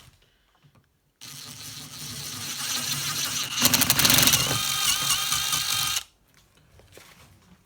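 Electric drill with a 1/4-inch bit boring out the stripped comb-screw thread in the soft aluminium head of a Heiniger Extra shearing handpiece, to take a 6 mm Helicoil. It starts about a second in, grows louder, picks up a steady high whine partway through, and stops abruptly after about five seconds.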